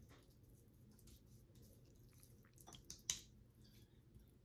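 Faint soft squishing and small sticky clicks of a hand rubbing seasoning into a raw salmon fillet on a wooden board, with one short, sharper click about three seconds in.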